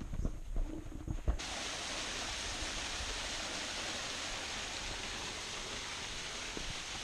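A few footsteps on a dirt trail, then the steady rush of a small waterfall splashing onto rocks, which cuts in suddenly about a second and a half in.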